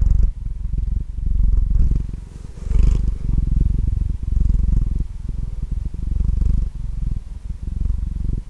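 Domestic cat purring right at a condenser microphone, a low rumble that swells and fades with each breath, about once a second.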